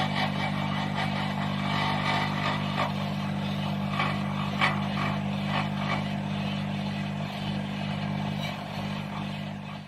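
A steady low mechanical hum with light clattering over it, fading out near the end.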